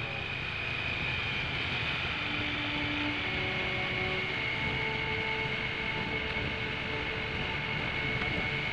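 Steady wind rush on the microphone and engine and road noise from a Triumph Tiger Sport motorcycle cruising at an even speed, with a few faint held tones over it.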